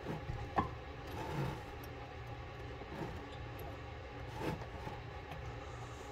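A few faint clicks and scrapes from hands turning the slip nut on a chrome sink drain pipe, over a steady low hum.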